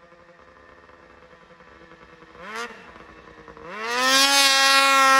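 Ski-Doo 600RS race snowmobile's two-stroke engine, fitted with an MBRP race can, idling faintly with one quick blip of the throttle about two and a half seconds in. Near the end it revs up sharply and holds a loud, steady high-pitched note at full throttle as the sled takes off.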